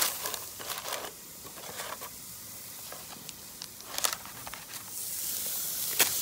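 Beef burger patties sizzling on a hot grill, the sizzle dropping lower in the middle and coming back strong near the end. Crinkling and light clicks of a foil tray and paper being handled, and one sharp click near the end, the loudest sound.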